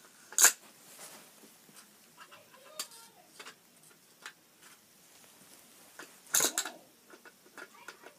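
Hard plastic clacking of a toy grabber claw against small plastic toy bins: one sharp clack about half a second in, a few faint ticks, then a quick cluster of clacks around six and a half seconds.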